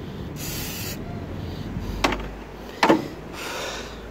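Short hissing spray burst about half a second in while dust is cleaned off a newly fitted engine mount, followed by two sharp metallic knocks about two and three seconds in and a fainter hiss near the end.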